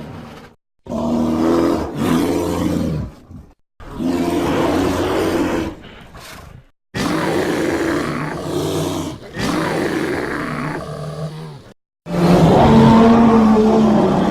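Carnotaurus dinosaur sound effect: a series of deep, pitched roars and growls, about five in a row, each two to three seconds long with short silent gaps between them. The last, starting near the end, is the loudest.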